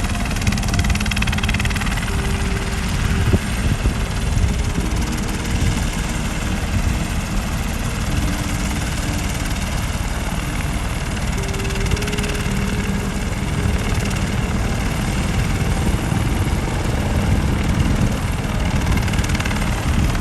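Sightseeing helicopter coming in to land close by, its rotor and turbine running loud and steady.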